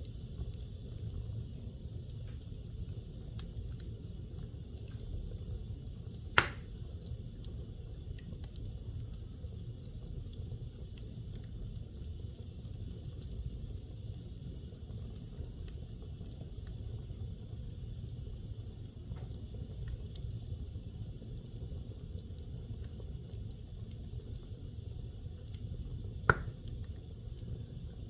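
Fire burning in a fireplace: a steady low rumble with faint crackling, and two sharp pops, one about six seconds in and one near the end.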